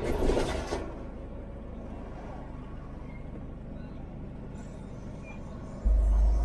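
Heavy trucks passing close by a halted vehicle, over a steady low traffic hum. A lorry goes by with a rush of noise at the start, and near the end a deep, loud rumble comes as a tanker truck passes alongside.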